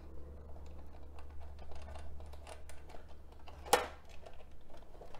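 Light clicking and rattling of hard plastic fairing parts and small hardware being handled as a bolt, washer and nut are fitted by hand onto a motorcycle lower-fairing vent. One sharp knock comes about three and a half seconds in.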